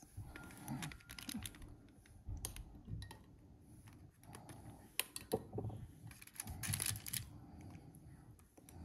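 Irregular light clicks, taps and scrapes of a utensil in a baking pan as stuffed pasta shells in sauce are moved and lifted.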